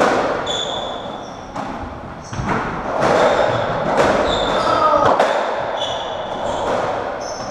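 A UK racketball rally on a squash court: the hollow rubber ball is struck by rackets and hits the walls and floor in sharp, echoing knocks about every second or so, with shoes squeaking briefly on the wooden floor between shots.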